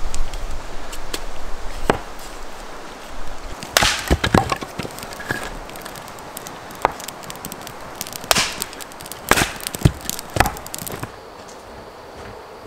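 Hatchet chopping small pieces of wood on a stump chopping block: a series of sharp strikes at uneven intervals, some in quick clusters, stopping near the end.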